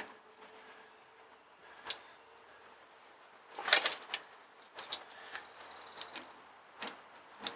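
Hand tools working on the tractor's exhaust bolts: a few scattered metallic clinks and knocks, the loudest cluster about halfway through.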